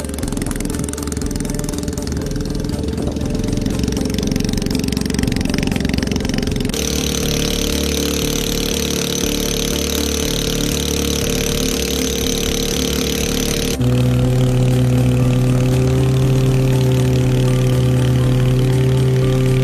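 SYM Attila 125 scooter engine, mounted in a homemade foam mini boat, running at a steady speed. Its pitch and loudness jump abruptly twice, about seven and fourteen seconds in, and it is loudest and deepest after the second change.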